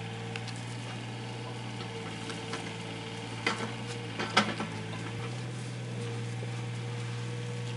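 Dry straw bedding rustling and crackling as young Šarplaninac puppies shuffle about in it, with a few sharper crackles around the middle, over a steady low hum.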